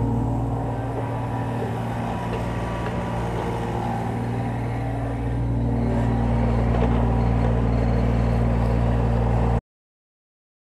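Kubota U25 mini excavator's diesel engine running steadily as the machine digs, picking up and running louder about five and a half seconds in. The sound cuts off abruptly about a second before the end.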